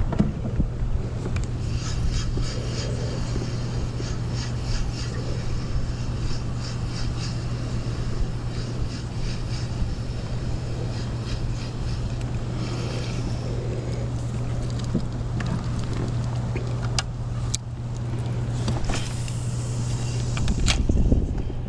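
Kayak's electric trolling motor humming steadily, with bursts of light, rapid ticking and a couple of sharp clicks near the end.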